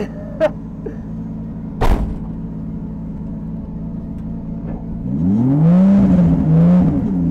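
Drift car's engine idling steadily, heard inside the cabin, with a single sharp knock about two seconds in. About five seconds in, the engine revs up as the car pulls away: its pitch rises, holds high with a short dip, and stays up to the end.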